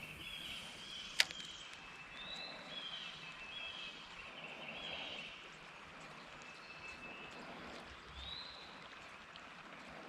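Faint creekside outdoor ambience. A bird calls in short arching chirps, several in the first half and one more near the end, and there is a single sharp click about a second in.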